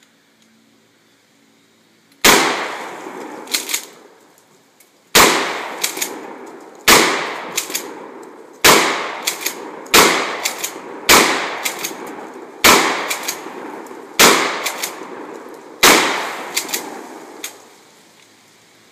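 Nine 12-gauge blasts from a Mossberg 590A1 pump-action shotgun, roughly one every one to two seconds, each ringing off through the trees. A quick double clack of the pump being worked follows most shots.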